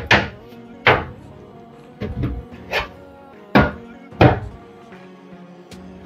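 Metal PC case side panel knocking against the case frame as it is handled and fitted: about six sharp, irregular knocks, over background music.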